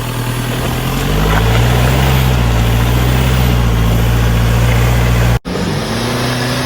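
Car engine revving up over the first second or two, then held at steady high revs under load as the car pulls up a slope. The sound drops out for an instant about five seconds in, then the engine note carries on.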